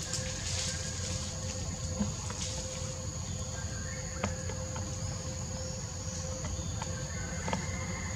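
Forest ambience: a steady high-pitched insect drone over a low, even rumble, with a few short faint chirps and clicks.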